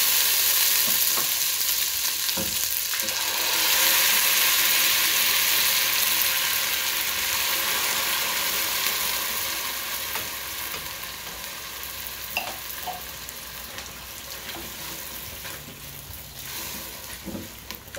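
Blended tomato, ginger and garlic sizzling as it is poured into hot oil and fried onions in a pot. The sizzle is loudest over the first half and dies down as the mixture settles, with a spatula stirring it near the end.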